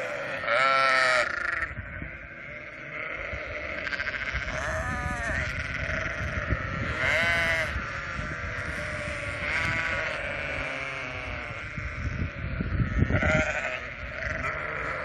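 A large flock of sheep bleating: about five loud, wavering bleats from sheep close by stand out over a continuous chorus of other sheep calling. Low rumbling noise swells near the end.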